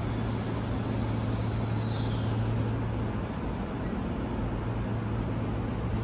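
Steady low hum inside a Sotetsu 8000 series commuter car standing at a station, from the car's onboard equipment and air conditioning. A faint high whine rises slightly and then falls away over the first couple of seconds.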